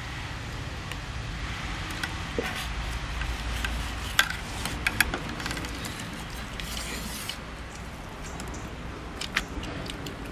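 Broad steel knife scraping and clinking against a stainless steel plate as a large omelette is cut into pieces and lifted off, with a few sharp clinks about four to five seconds in and once more near the end. A steady low rumble runs underneath.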